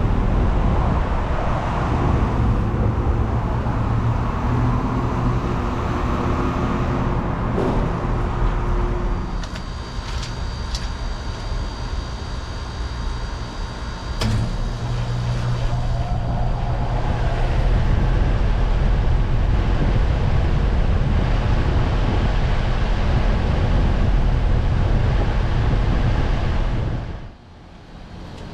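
Outdoor heat pump units running in heat mode, with a steady compressor and fan hum. The first is a 2009 Carrier Performance Series unit. About nine seconds in it cuts to a 2024 Amana ASZN4 heat pump starting up: a sharp click a few seconds later, then its hum building louder.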